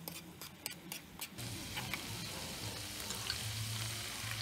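A spatula clicking and scraping against a frying pan as minced garlic sizzles in butter; about a second and a half in, chicken stock poured into the hot pan sets off a louder, steady sizzle.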